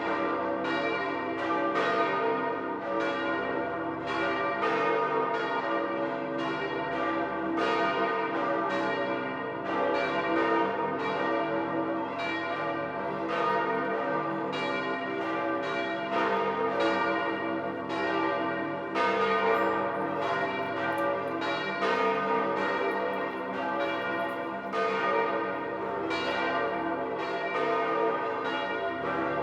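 The bells of St. Peter's Basilica ringing in full peal: several large church bells striking in steady, overlapping succession, their long ringing tones blending into one another. The full peal is the bells' signal announcing the election of a new pope.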